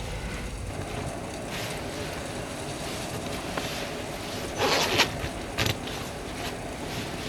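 Blizzard wind buffeting a small camper, a steady rumbling rush. About two-thirds of the way through come two brief, louder handling noises.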